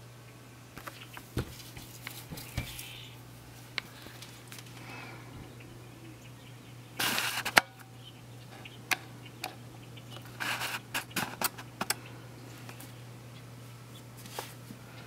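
Indoor room sound with a steady low hum, broken by scattered sharp clicks and short rustles from handling the camera. The loudest rustle comes about seven seconds in, and a quick run of clicks and rustles follows a few seconds later.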